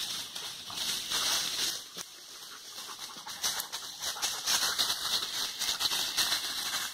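Dry leaf litter and twigs crackling and rustling as they are trodden on: a dense run of crisp little crunches that swells and eases.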